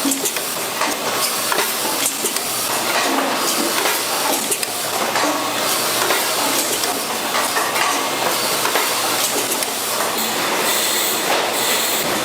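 Food-processing machinery running, a steady loud clatter with many small metallic clicks and clinks.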